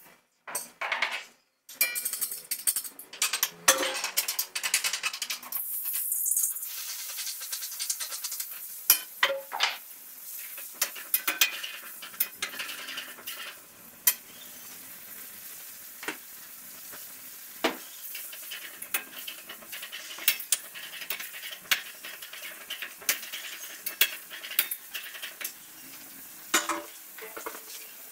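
Food frying in hot oil in a pan on a gas stove. A loud burst of sizzling starts about two seconds in and settles after a few seconds into steadier, quieter sizzling, with scattered clicks and clinks of a utensil against the pan.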